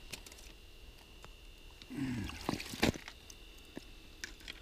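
Faint water sloshing and trickling in an ice-fishing hole, with scattered light clicks, as the ice thickness is checked at the hole. A brief low falling tone about two seconds in is followed by one sharp knock, the loudest sound.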